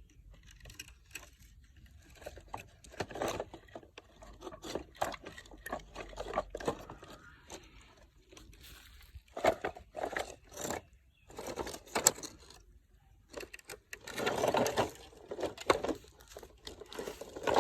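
Toy cars being handled and pushed about: irregular clicks, knocks and scrapes, with a denser stretch of rubbing about fourteen seconds in.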